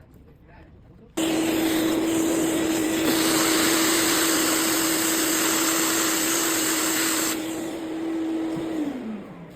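A fan-driven electric appliance switched on abruptly about a second in and running with a steady hum and rushing air noise. The rushing grows louder for a few seconds in the middle. Near the end the motor is switched off and winds down with a falling hum.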